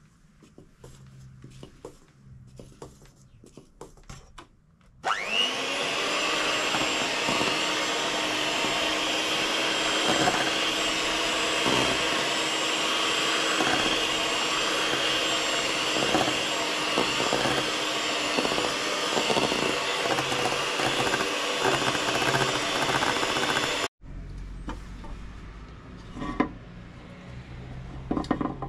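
An electric kitchen appliance motor mixing cake batter: it starts about five seconds in, spinning up quickly to a steady high speed, runs evenly with a few knocks, and cuts off suddenly about five seconds before the end. Faint clicks come before and after it.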